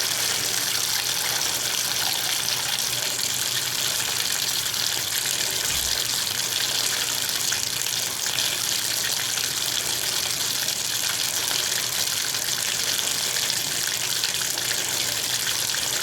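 Steady hiss of water running from a tap fed by a water heater, flowing at very low pressure.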